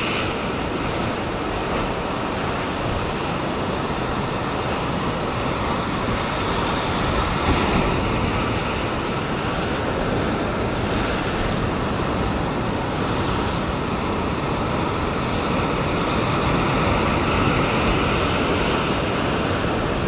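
Ocean swell breaking and washing against sea rocks: a steady rush of surf, with wind noise on the microphone.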